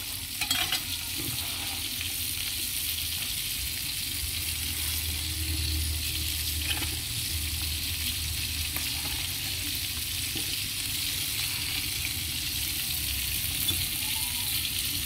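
Salted fish frying in hot oil in a wok, a steady sizzle.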